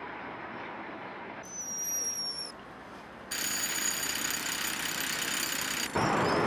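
A montage of city noise. First a low traffic and train hum, with a brief high squeal about a second and a half in. Then a pneumatic jackhammer breaking up paving, steady and loud, from about three seconds in. Near the end it gives way to louder railway noise.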